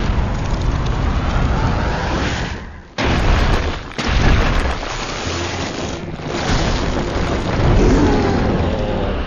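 Loud booming, rumbling action-film sound effects of blasts and impacts, heaviest in the low end. They cut out abruptly just before three seconds in, then start again.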